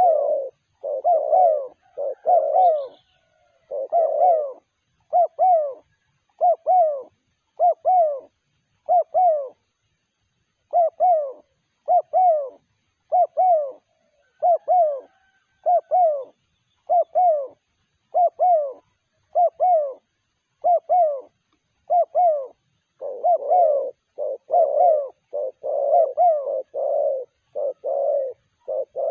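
Spotted dove (terkukur) cooing over and over in short coos, about one a second, bunching closer together near the end.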